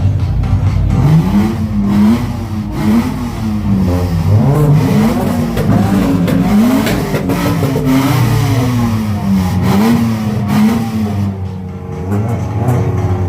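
Car engines revving and accelerating as cars drive past, the engine pitch rising and falling again and again.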